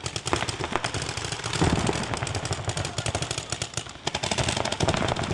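Paintball markers firing rapid strings of shots, the pops coming fast and overlapping, with a short lull just before the four-second mark.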